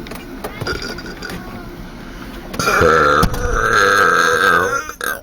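A teenager's long, loud burp, starting about two and a half seconds in and lasting some two seconds, with a brief break near its start.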